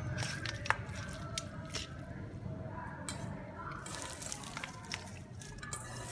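Hands mixing raw chicken pieces in a stainless steel bowl: wet squelching with scattered small clicks and taps against the metal, one sharper click under a second in. Later, shredded lemongrass and leaves rustle as they are stirred in.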